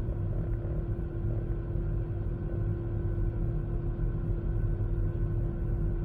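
Steady cabin noise inside an Airbus A380 in its climb after take-off: a low rumble of engines and airflow with a constant hum running through it.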